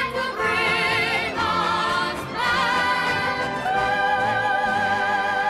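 Operatic singing with orchestral accompaniment: a voice sings a phrase in wide vibrato, then holds one long high note from a little past the middle.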